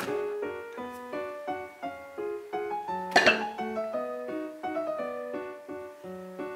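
Background piano music with a quick, even run of notes. About three seconds in, a short clatter as the hand blender's plastic parts are handled and set down.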